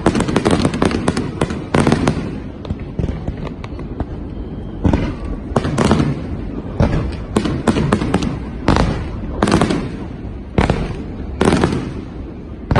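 Aerial fireworks bursting in quick succession: a steady run of sharp bangs with crackle, about one to two a second, each followed by a short echo.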